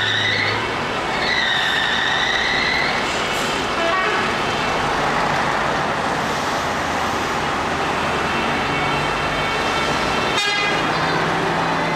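Vehicle convoy of coaches and cars passing slowly with engine and traffic noise, and car horns honking: a long horn blast ends about half a second in and another sounds from about one to three seconds, with fainter toots later.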